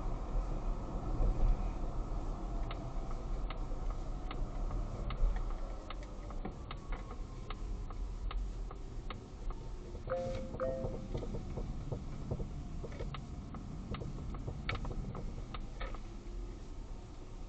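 Polestar 2 suspension clicking: a run of sharp clicks, evenly spaced at first and then more irregular, over a steady low rumble of road and cabin noise. Two short beeps come about ten seconds in. The clicking is a fault that two repair attempts have not cured.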